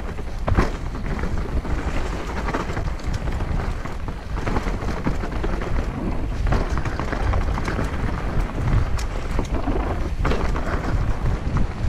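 Mountain bike riding down a muddy downhill trail, heard from a camera on the rider or bike: a steady rush of wind on the microphone with frequent knocks and rattles as the bike rolls over roots.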